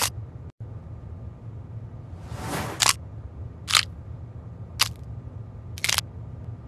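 A pale stick being crushed: a rising hiss ending in a sharp crack, then three more sharp cracks about a second apart, over a steady low hum.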